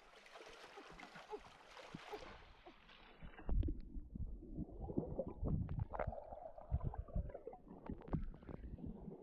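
Shallow stream water running over rocks, then, about three seconds in, muffled underwater gurgling and low irregular thumps as hands grab at a red fish in the water, heard from under the surface.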